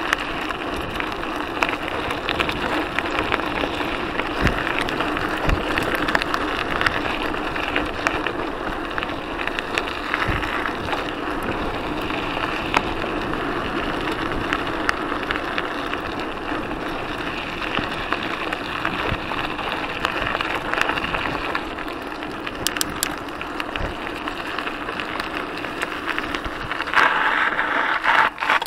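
Mountain bike rolling over a gravel trail: a steady rough noise of tyres on loose stones, with scattered knocks and rattles from the bike, louder just before the end.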